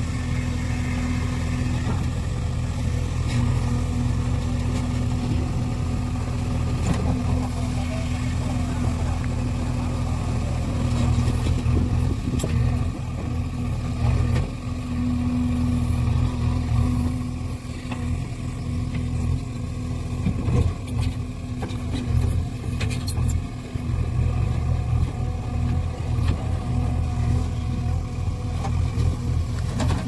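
JCB 3DX backhoe loader's diesel engine running steadily under load while the backhoe digs, with a few sharp knocks in the second half.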